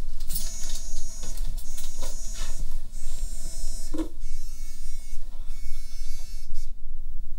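Mobile phone vibrating on a hard kitchen counter in repeated buzzes of about a second each: an incoming call.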